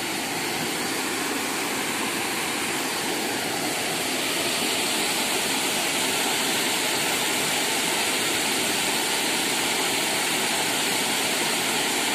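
A small weir waterfall, its water pouring over the weir and churning into the pool below with a steady rush.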